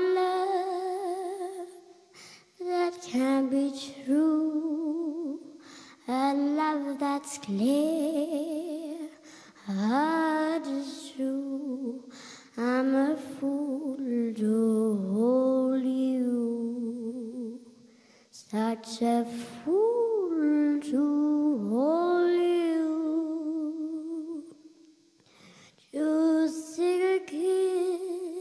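A young girl singing unaccompanied into a microphone: slow phrases of long held notes with vibrato, separated by short pauses.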